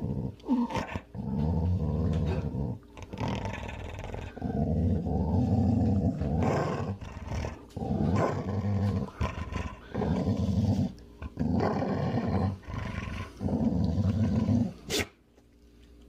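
A dog growling and snarling in a string of low growls, each a second or so long with short breaks between, stopping about a second before the end.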